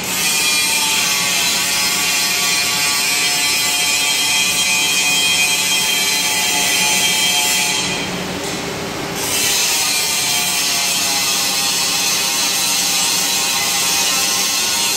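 Two-head gantry CNC drilling machine running, its drill motors and drives giving a steady mechanical whine over a hissing noise. The sound dips and thins briefly about eight seconds in, then picks up again.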